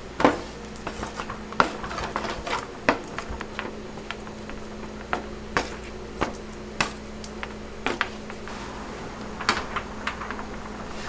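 Irregular clinks and knocks of kitchen utensils and a strainer against aluminium sheet pans as cooked linguine is spread and tossed, over a steady low hum.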